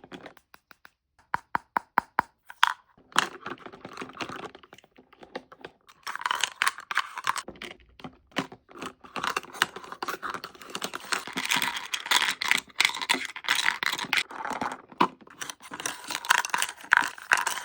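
Pieces of a miniature toy kitchen set handled and played with: a few separate sharp clicks and taps, then a busy run of small clicks, taps, clatter and rustling.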